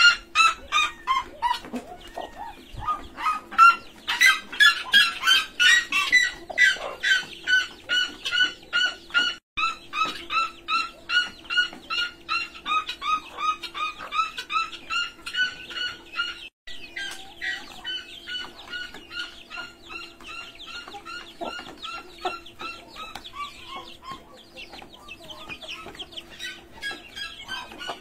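Chickens calling: a long run of short, rapidly repeated pitched calls, about two or three a second, louder at first and fading somewhat in the second half.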